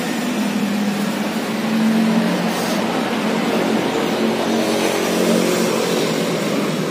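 Motor vehicle engine running, a steady hum with a hiss over it that swells slightly twice.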